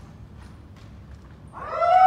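A kendoka's kiai: a long, loud shout that starts near the end, its pitch arching up and then down, after a few faint taps.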